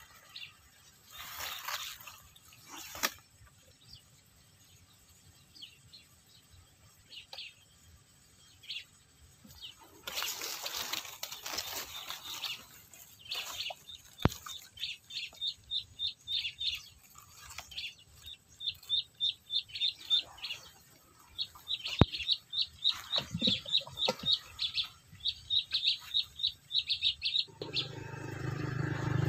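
A bird chirping in quick runs of short, high notes, growing busier through the second half. There are occasional brief bursts of rustling noise and two sharp clicks.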